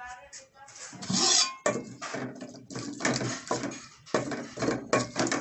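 An aluminium cooking pot's lid is lifted off with a clatter about a second in. Then a wooden spoon stirs and scrapes tomato-onion masala in the pot in repeated strokes.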